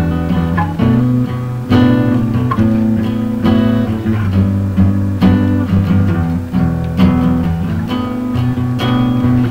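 Band music led by a strummed guitar: sustained chords with a sharp strum about once a second, the chord changing every few strums.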